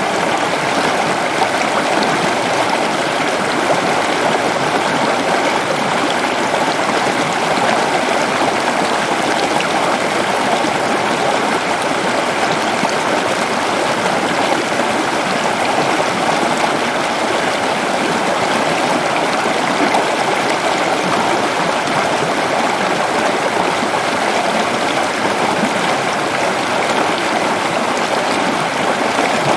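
Waterfall in a forest: a steady, loud rush of falling and splashing water, even throughout.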